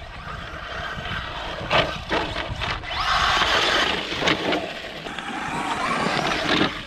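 Traxxas Slash 4x4 electric RC truck driving over loose dirt, then hitting the ground hard and tumbling, with several sharp thumps and a loud rush of scattering dirt about three seconds in.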